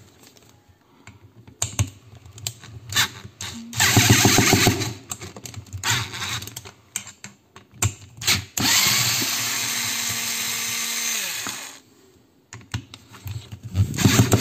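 Electric screwdriver whirring in bursts as it backs screws out of an electric clipper's plastic housing, with clicks and handling knocks between runs. A short run comes about four seconds in; a longer run of about three seconds starts past the middle and spins down with a falling whine; another starts near the end.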